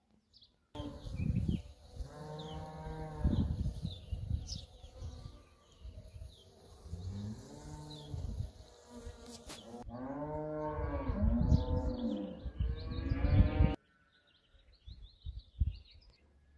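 Cattle mooing: several long, loud moos that rise and fall in pitch, starting and stopping abruptly.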